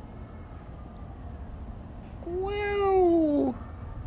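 A cat yowling: one long, drawn-out call about two seconds in, lasting just over a second and dropping in pitch at the end. The listener takes it for a cat in a lot of pain.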